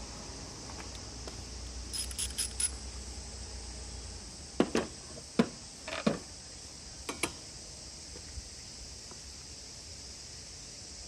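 A quick run of light metallic clinks, then a handful of louder knocks and taps, like tools or small metal parts being handled, over a steady high-pitched insect drone.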